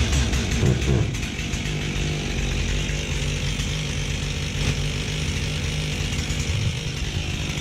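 Stihl MS362C two-stroke chainsaw engine catching on a cold start and running steadily on choke as it warms up.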